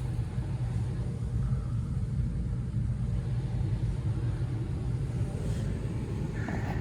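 Furnace running with its blower pushing air through the ductwork, with the zone damper open: a steady low rumble.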